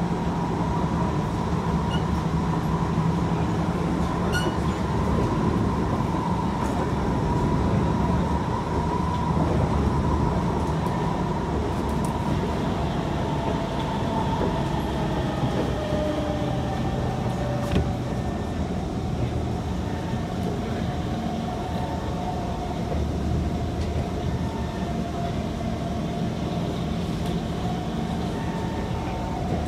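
Interior running noise of a Kawasaki–Nippon Sharyo C151 MRT train travelling on elevated track: a steady wheel-on-rail rumble with a thin whine that shifts in pitch a few times.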